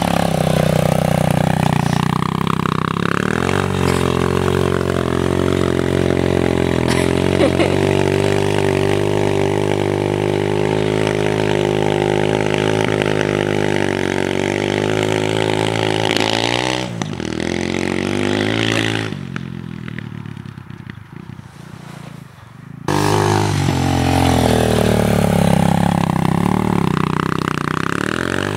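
Dirt bike engine being revved hard on a muddy hill climb. The revs rise and fall, are held steady for a long stretch, and then drop away to a quieter passage. Near the end the engine comes back loud with the revs swinging up and down as the rear wheel spins in the mud.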